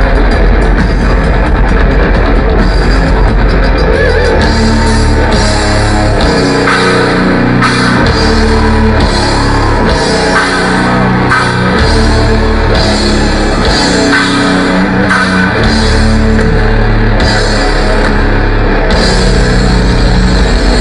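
Live rock band playing loud on stage, with distorted electric guitar, bass and drum kit.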